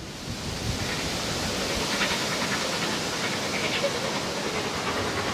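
Steady hiss of steam escaping from narrow-gauge steam locomotives, starting suddenly at the beginning and holding even throughout.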